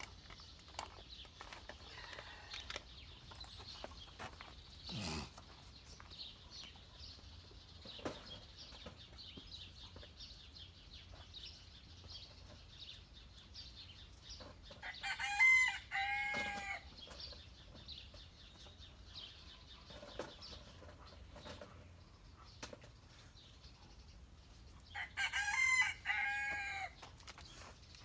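Two loud, drawn-out animal calls, each about two seconds long, the first about halfway through and the second near the end, over faint high chirping throughout.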